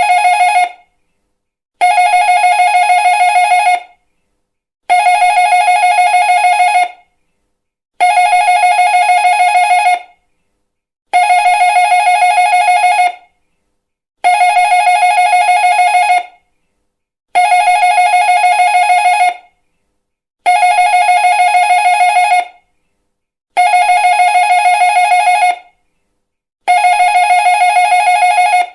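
Doorbell ringing over and over: a rapidly trilling bell tone in rings of about two seconds, each followed by about a second's pause, ten rings in all.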